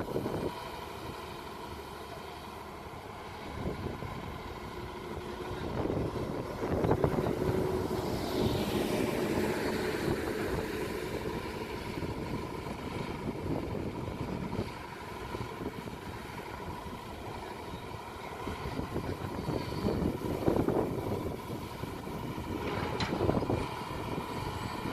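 Daewoo long-reach excavator's diesel engine and hydraulics running under load, with a steady whine throughout and a whine that falls in pitch about eight seconds in. The engine swells louder several times as the machine works.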